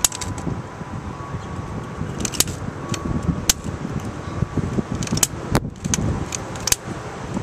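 Long-nosed butane utility lighter (fire stick) clicking repeatedly as its igniter trigger is pulled again and again at the charcoal. The clicks are sharp and come at uneven intervals, about one or two a second.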